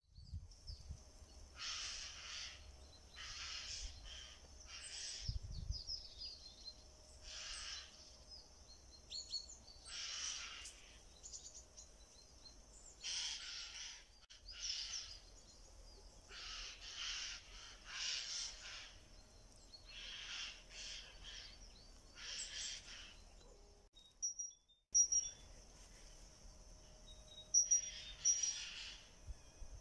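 Birds singing and calling in bare spring woodland. Short loud calls recur every second or two over a thin, steady high chirping.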